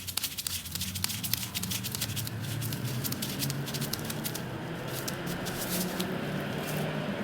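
Light, rapid clicking and tapping of small metal winch parts and screws being handled during reassembly, over a low steady hum.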